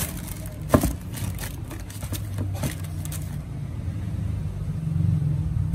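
Rustling and sharp clicks as a sneaker and its plastic hang tags are handled close to the microphone, the loudest click a little under a second in. A steady low rumble runs underneath.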